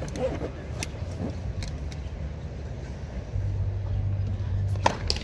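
A tennis ball bounced a few times on the hard court before a serve, then the racket strikes the ball in a sharp crack near the end, over a steady low rumble.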